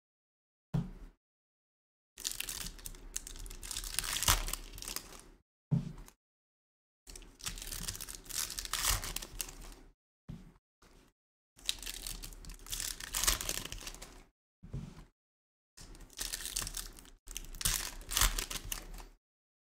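Foil wrappers of Topps Chrome Formula 1 trading card packs being torn open and crinkled, with the cards slid out and handled. The sound comes in a string of short crackly bursts with complete silence between them.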